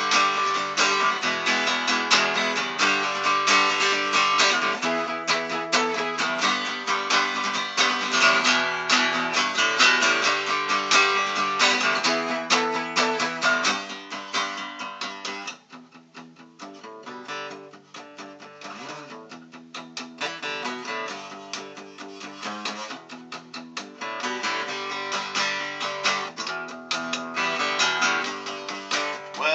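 Acoustic guitar strummed in an instrumental break in a song. The playing drops much softer about halfway through and builds back up near the end.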